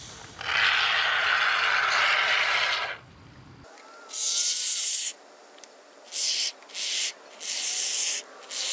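Expanding spray foam hissing out of an aerosol can through its straw nozzle, filling a rust hole: one long burst of about two and a half seconds, then a run of shorter bursts of under a second each.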